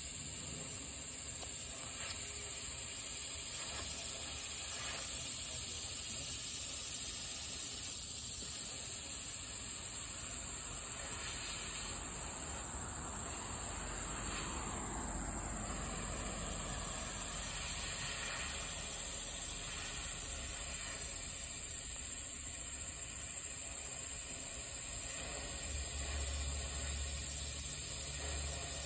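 Sprayer nozzle hissing steadily while a treatment is sprayed.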